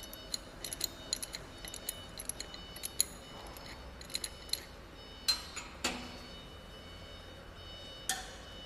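Steel wrench clinking against the tool grinder's workhead nut and base while it is fitted and turned to lock the head: a quick run of small metallic clicks, then a few louder clanks about five and six seconds in and again near the end.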